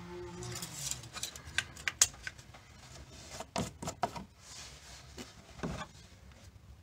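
Scattered small clicks and light knocks of hand work under the hood: the engine oil dipstick slid back into its tube, then more handling clicks ahead of topping up the oil.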